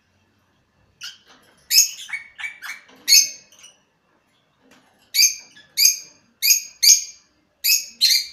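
Lovebirds calling in short, sharp, high-pitched chirps: a quick run of squeaky calls about a second in, then six separate calls a little over half a second apart.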